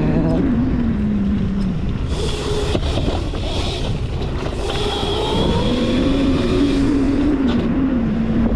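Modified Razor MX650 electric dirt bike with an 11,000-watt brushless motor, whining under way, its pitch rising and falling with the throttle. It runs over a heavy rush of wind on the microphone, with a brief knock about a third of the way in.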